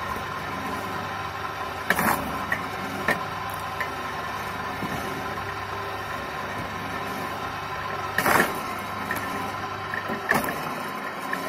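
Motor of a homemade belt-driven log splitter running steadily, with sharp cracks of logs being split about two seconds in, a little past eight seconds, and again near the end.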